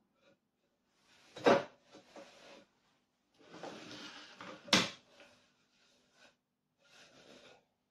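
Wooden shelf boards scraping as they are slid into a small wooden shelf unit and set down onto shelf pins, with two sharp wooden knocks, one about a second and a half in and a louder one near five seconds, as the boards land.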